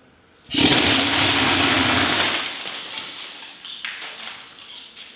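A homemade BB gun charged to 4000 PSI firing metal BBs into a row of wine glasses: about half a second in, a sudden loud blast as the glasses shatter, then a rushing noise that lasts about two seconds and fades, with a few scattered clinks of falling glass near the end.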